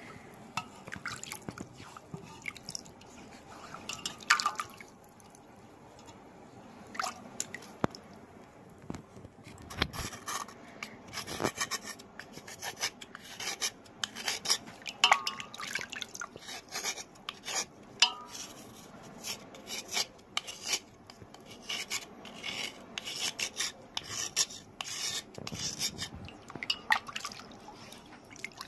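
Soft, chalky stone being scraped and rubbed wet over a basin of water: a run of short scratching strokes, with water dripping and splashing.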